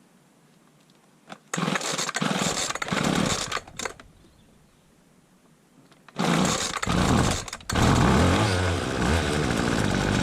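Small petrol lawnmower engine being pull-started cold after about three months standing. A first attempt sputters for a couple of seconds and dies. A second pull about six seconds in fires it, and it settles into a steady run.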